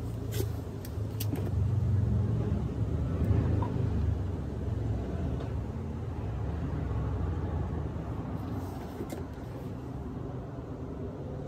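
Light clicks of the metal motor parts of a vintage Century fan being handled and fitted together, a few near the start and a couple around nine seconds in. Under them runs a low rumble that swells over the first few seconds and then eases.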